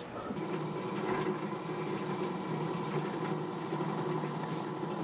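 Benchtop drill press running with a steady motor hum that comes in just after the start, its bit boring a hole through a forged-iron tsuba blank.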